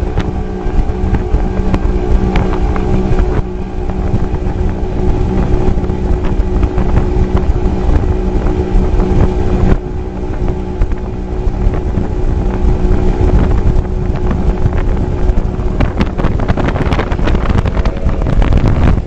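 Mercury outboard engine on a speedboat running steadily at high speed, with rushing water and wind buffeting the microphone.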